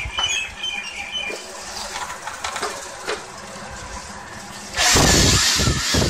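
Plastic clicks and rattles as the Olympia OLY-503 electric blower is handled and its hose fitted. Nearly five seconds in, the blower's motor is switched on and runs loud with a rush of air, set up as a vacuum.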